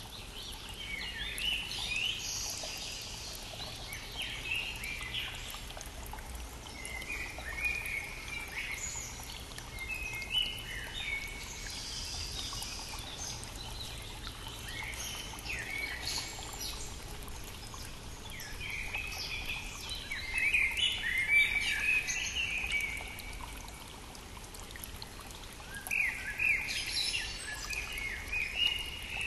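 Songbirds singing in short, quick chirping phrases every few seconds, the loudest run about two-thirds of the way through, over the steady rushing of a brook.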